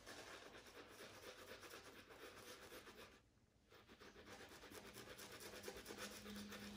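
Black Anvil 'Nadrageel' shaving brush working up a dense shaving-soap lather: faint, rapid swishing and scrubbing of wet bristles, pausing briefly about three seconds in.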